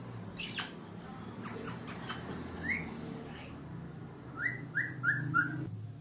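African grey parrot whistling. It gives a couple of short chirps, a single rising note midway, then a run of four quick rising whistles near the end.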